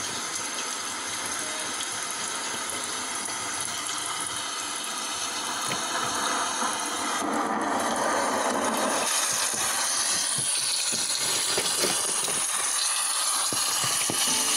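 Steady rushing hiss, a little louder from about eight seconds in.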